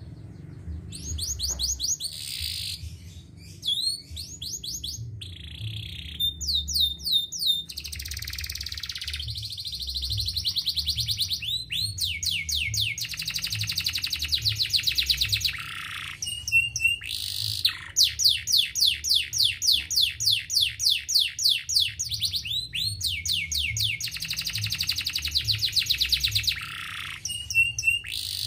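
Domestic canary singing: long rolling trills, each a fast run of repeated high notes, broken by short pauses between phrases.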